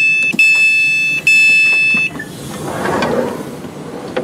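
Door-open warning beeps on a London Northwestern Railway Class 350 electric train: a loud, steady high electronic tone in long beeps for about two seconds as the door-open button is pressed. Then, about three seconds in, a short rushing noise as the sliding door opens.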